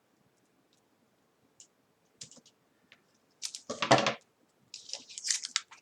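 Hands working double-sided adhesive tape onto a laptop screen edge: scattered small clicks, then a louder knock about three and a half seconds in, followed by a run of crackly rustling and clicking.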